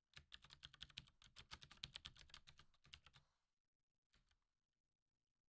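Faint computer keyboard typing: a quick run of keystrokes for about three seconds, then a single keystroke about a second later.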